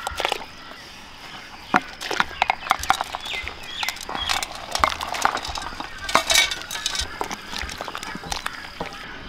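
Lumps of food being scraped by hand off steel plates into a large steel pot of boiling water. The sound is irregular clinks and taps of hand and plate against steel, mixed with splashes.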